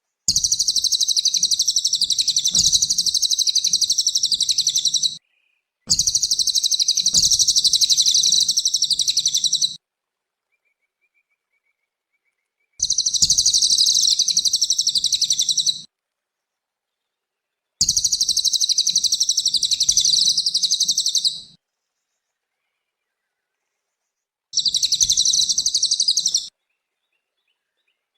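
Cililin's very rapid, high chattering song in five bursts of about three to five seconds each. Each burst starts and stops abruptly with silence between them, and a faint low hum sits under the song.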